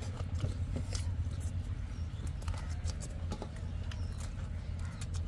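Eating sounds: chewing and wet mouth clicks of people eating chicken curry and rice by hand, scattered short clicks over a steady low hum.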